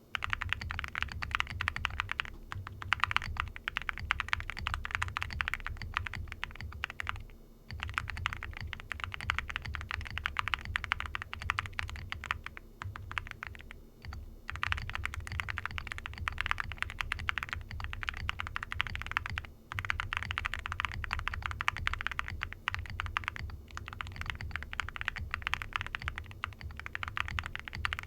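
Fast continuous typing on an Owlab QK65 mechanical keyboard with lubed and filmed Gateron Cream Soda linear switches, a POM plate and CeraKeys ceramic keycaps. A dense run of key strokes, broken by a few brief pauses.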